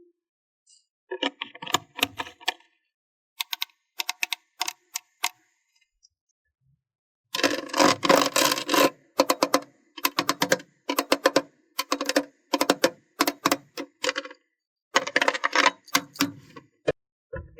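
Slime being mixed and squished, making crackling, popping clicks. The clicks come in short bursts, sparse at first, then dense from about seven seconds in and repeating roughly every half second to second after that.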